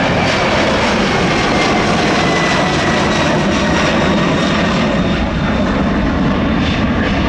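Jet airliner engines running at high power: a loud, steady roar with a thin high whine that slowly falls in pitch.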